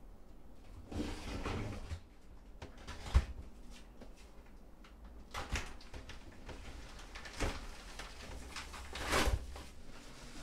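Plastic mailer bag and paper wrapping rustling and crinkling as a parcel is opened by hand, in several separate bursts with a few soft knocks of the box being handled; the longest crinkle comes near the end.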